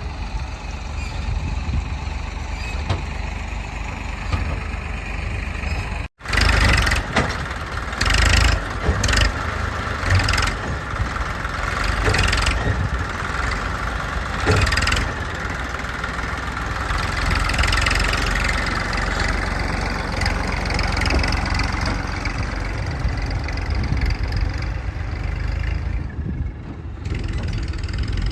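Diesel engine of a backhoe loader running under working load, with several metallic clanks and a rise and fall in engine pitch. The sound cuts out for a moment about six seconds in and comes back louder.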